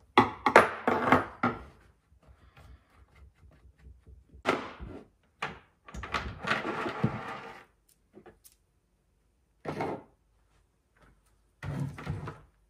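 Intermittent clanks, scrapes and rattles of metal chainsaw parts being handled as the bar and chain come off a Stihl MS250 and are set down on the bench. The loudest clatter comes in the first two seconds.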